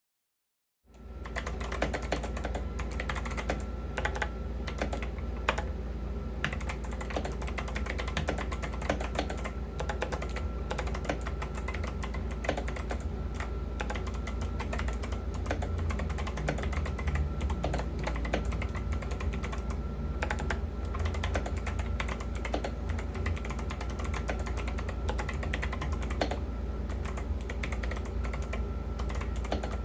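Keys of an 8BitDo Retro Mechanical TKL keyboard being typed on in a fast, continuous stream of mechanical key clicks, starting about a second in over a steady low hum.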